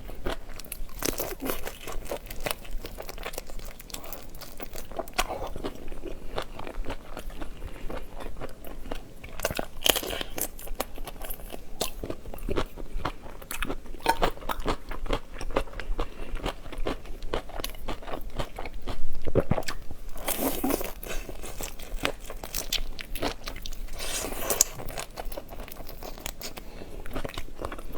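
A person eating seafood: a continuous run of crunching bites and chewing, with many short cracks and clicks and one louder crunch about two-thirds of the way through.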